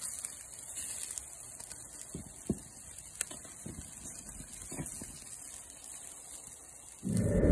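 Live charcoal burning under a grill grate, mostly quiet with a few sharp crackles. A short low rumble comes in near the end.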